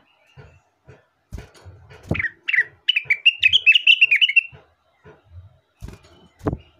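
Rengganis (cucak wilis) singing a quick, warbling run of chirps for about two seconds, with a few low knocks before and after the song.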